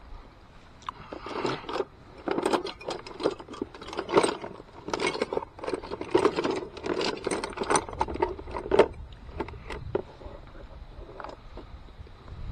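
Metal hand tools clinking, rattling and scraping in an irregular string of short knocks.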